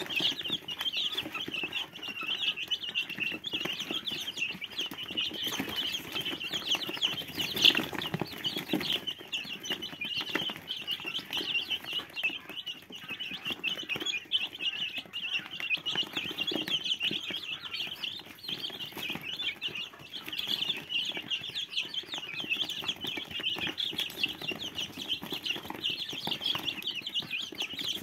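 A brood of young chicks peeping without pause as they feed, many high, short cheeps overlapping into a steady chatter. About eight seconds in there is a single sharp knock, the loudest moment.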